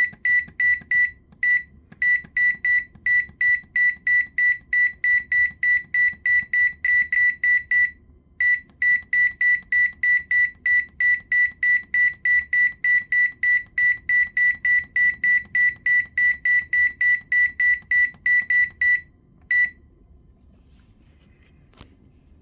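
Electronic beeper of a Whirlpool 8302319 oven range control board beeping rapidly, about three short high-pitched beeps a second. The beeps pause twice briefly and stop about three seconds before the end.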